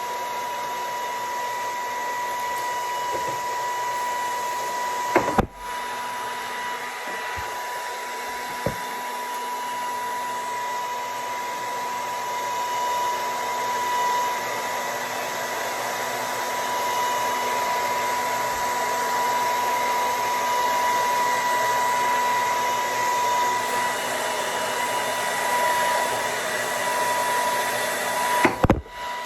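Handheld blow dryer running steadily with a high whine over its rushing air, drying glue along a lace wig's hairline. The air briefly cuts out about five seconds in, and there are a couple of clicks near the end.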